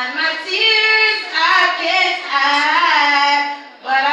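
A woman singing solo into a handheld microphone, in long held lines that bend in pitch, with short breaks for breath and no accompaniment heard.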